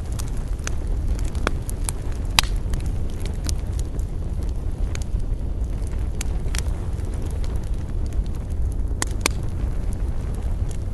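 Campfire burning, wood crackling with scattered sharp pops, the loudest about two seconds in and a close pair near the end, over a steady low rumble.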